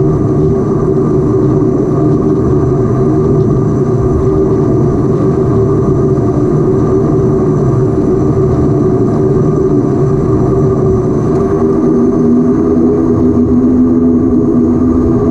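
Antonov An-24's Ivchenko AI-24 turboprop engines and propellers running while the aircraft taxis, heard from inside the cabin: a loud, steady drone with a high whine above it. Near the end a lower tone joins as the engine note shifts.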